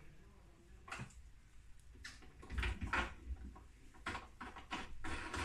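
Irregular clicks and knocks of a lawn mower's metal handle bar and its plastic hand wheel fittings being fitted and tightened, coming more often in the second half.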